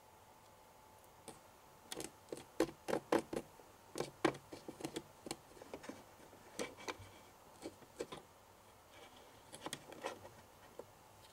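Tiny plastic spoon clicking and scraping against a small plastic bowl while stirring a damp powder mix, in irregular light taps that come thickest in the first half and thin out later.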